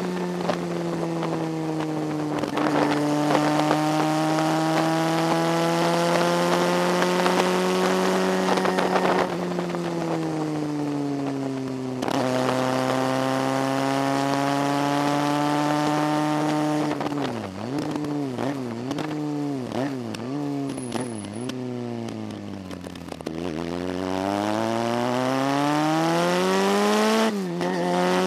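Motorcycle engine heard on board while riding up a winding mountain road, running at a steady pitch, dropping about a third of the way in, then rising and falling in quick swings around the middle as the throttle is worked. After a low dip it climbs steadily, with a quick drop in pitch near the end.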